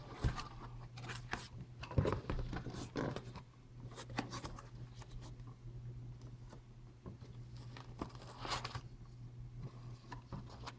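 A flashlight's cardboard box and packaging being opened and handled: irregular rustling and scraping with small knocks and taps.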